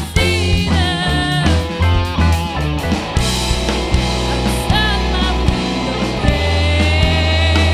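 Live rock band playing: drum kit, electric guitar and keyboards, with female voices singing wavering melodic lines. One sung note is held long near the end.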